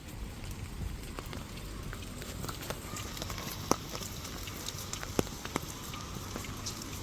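Steady rain on a wet street, with scattered sharp drips ticking and a few louder drops in the second half, over a steady low hum.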